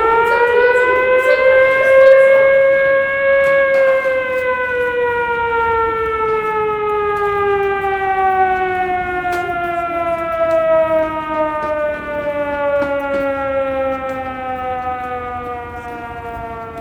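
Air-raid siren finishing its wind-up to peak pitch about three seconds in, then winding slowly down in one long falling wail.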